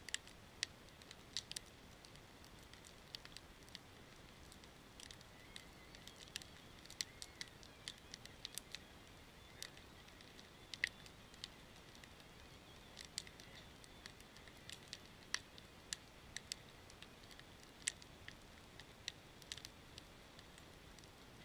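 Wood fire of split logs crackling, with irregular sharp pops and snaps.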